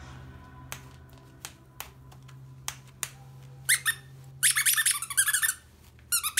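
A few faint light taps, then the squeaker in a plush dog toy squeezed in loud bursts of high, wavering squeaks: a short one about three and a half seconds in, a longer run of about a second, and a brief one near the end.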